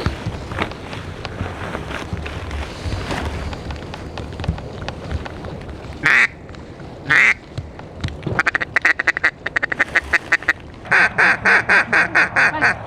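Duck call blown by a hunter: after a few seconds of low rustling, two single loud quacks, then a fast chatter of short pulses, then a quick run of about ten loud, evenly spaced quacks near the end.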